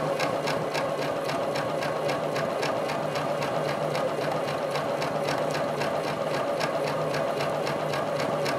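Domestic sewing machine running steadily while free-motion quilting through a quilt with a spring-loaded hopping foot, the needle stitching in an even, rapid rhythm.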